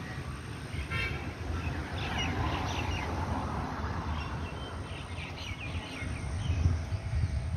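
Several short bird chirps and twitters, about a second in and again from two to three and five to six seconds, over a steady low rumble of wind on the microphone.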